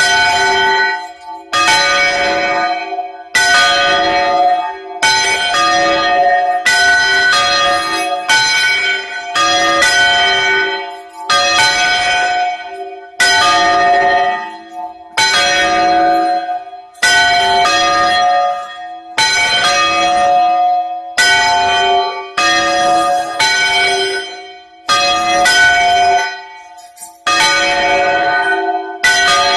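Two church bells being swung full circle by hand (Spanish bandeo), their clappers striking about once every second or two in an uneven alternation. Each stroke rings out loud with a bright metallic tone that fades away before the next.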